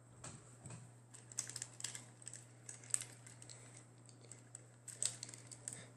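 Plastic parts of a Transformers Combiner Wars Superion toy being handled and pegged together, a scattered run of light, irregular clicks and snaps.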